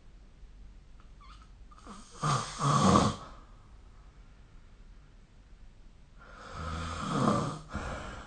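A sleeping person snoring: two loud snores, one about two seconds in and a longer one from about six seconds in.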